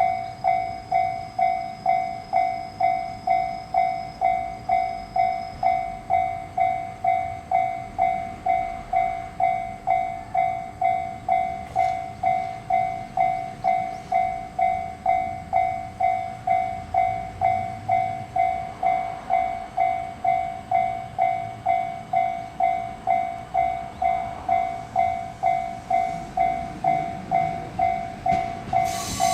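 Japanese railroad crossing warning bell ringing steadily, one ding repeated a little under twice a second, each stroke dying away. A train horn blasts right at the very end.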